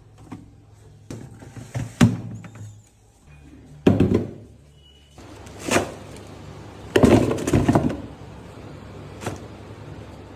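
A series of knocks and thuds, with a few longer clattering scrapes, as containers and produce are handled in a refrigerator and its doors or drawers are moved, over a steady low hum.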